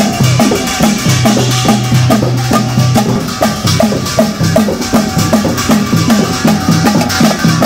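Rope-tensioned barrel drums (dhol) and a struck steel pot beating a fast, steady rhythm.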